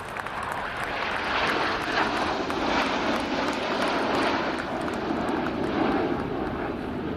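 Formation of BAE Hawk T1 jets flying past, the noise of their Rolls-Royce Turbomeca Adour turbofans building over the first second or two and then staying loud and steady. Applause fades out near the start.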